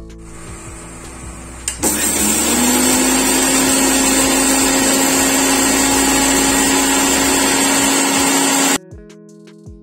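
Electric mixer grinder grinding green chillies and cumin seeds into a smooth paste. The motor starts about two seconds in, its pitch rising briefly as it spins up, runs steadily at full speed for about seven seconds, then cuts off suddenly.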